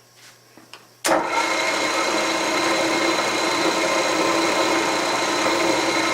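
A few light clicks, then about a second in a milling machine's spindle starts abruptly and runs steadily at about 750 rpm, a constant motor hum with a steady whine, set up for center drilling.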